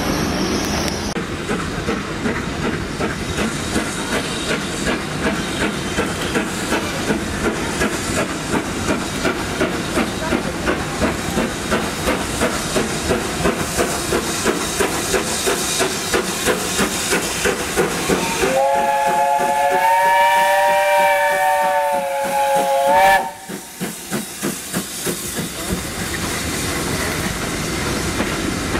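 BR Standard Class 7 Pacific 70000 Britannia working a train: regular steam exhaust beats with hissing steam. A bit past halfway comes one long steam whistle blast, several notes sounding together for about four and a half seconds. After it the beats carry on and the coaches roll by with a clickety-clack.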